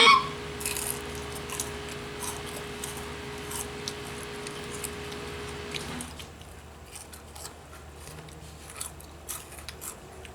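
Scattered crisp crackles and clicks from crunchy spicy snack chips being handled and eaten, over a steady hum that stops about six seconds in.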